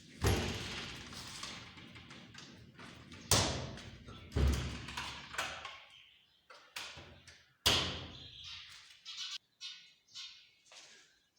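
A series of loud thuds, four big ones each dying away slowly, then quicker, fainter knocks near the end.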